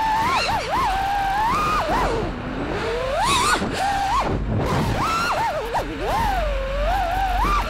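FPV freestyle quadcopter's motors whining, the pitch swooping up and down sharply as the throttle is punched and eased. There is a brief rushing burst about three seconds in.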